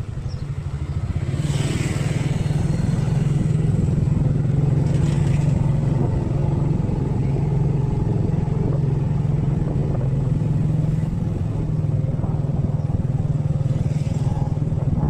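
A vehicle engine, most like a motorbike's, running at a steady pace as a continuous low hum that grows louder about a second in. Brief hissy swells of street traffic pass over it now and then.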